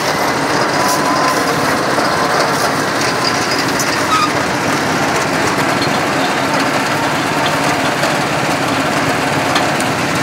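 A small motor running steadily.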